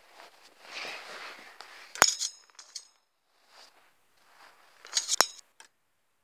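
Sharp metallic clinks with a brief ring, as of the wire bars of a hamster cage being knocked: one about two seconds in with a few lighter taps after it, and a quick pair about five seconds in. Soft rustling comes before the first clink.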